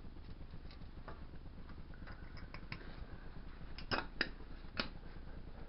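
A few faint ticks, then three sharp clicks close together about four to five seconds in, over a low steady background noise.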